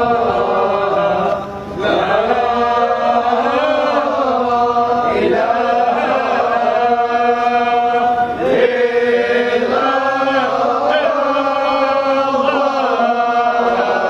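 A group of men chanting a Sufi devotional chant together, in long held notes that move slowly between pitches, with a short break for breath about a second and a half in.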